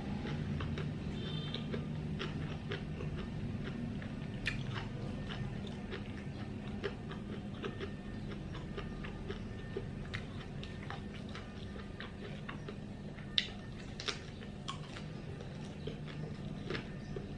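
Close-up chewing and mouth sounds of someone eating fresh Vietnamese rice paper rolls with shrimp and pork: soft wet chewing with scattered small clicks and smacks, and two sharper clicks a little over halfway through.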